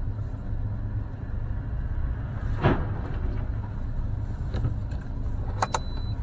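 Steady low rumble of car engines and traffic, with a short louder rush of noise nearly three seconds in and a few sharp clicks near the end.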